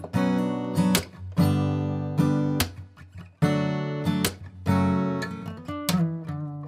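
Background music: acoustic guitar strumming chords, each chord ringing out and fading before the next.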